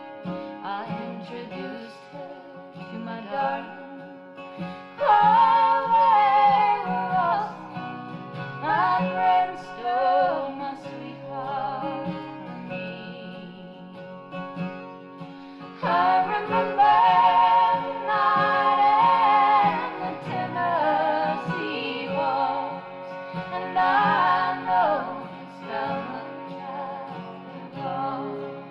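A song on an EP vinyl record played through a Matsushita EAS-20P19SA 20 cm full-range speaker: a singing voice over guitar accompaniment, with louder sung phrases about five seconds in and again past the middle, and quieter instrumental stretches between.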